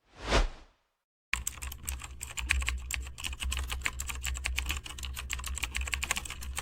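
A brief whoosh, then, from about a second in, fast continuous typing on a computer keyboard with many keystrokes a second.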